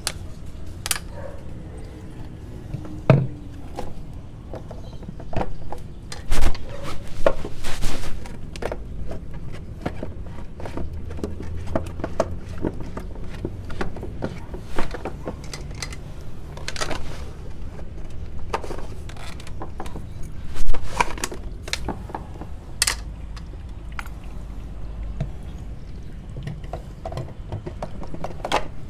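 Irregular knocks, clicks and scrapes of hard plastic being handled: blue sediment-filter housings being bumped and fitted by hand, over a low rumble of camera handling.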